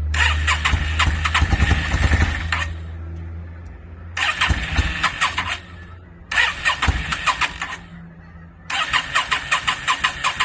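Yamaha V-Star 650 V-twin being cranked on its electric starter in four separate bursts, each a rapid chatter of one to two and a half seconds. The engine runs low at the start, fades out, and does not catch on the later tries while it is running rich on the choke.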